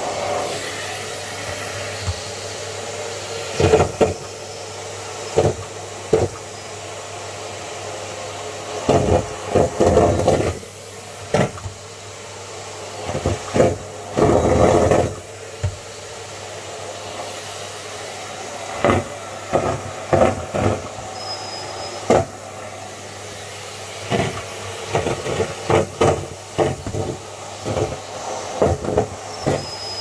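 Numatic James canister vacuum cleaner running steadily while its floor tool sucks up deflated rubber balloons. Irregular knocks and rattles, with louder bursts about nine and fourteen seconds in, as balloons are drawn into the nozzle and hose.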